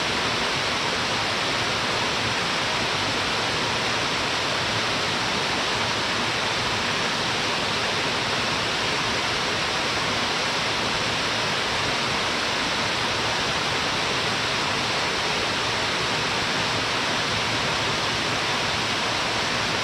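Waterfall pouring steadily into a wide plunge pool: a constant, even rush of falling water, strongest in the mid and upper range.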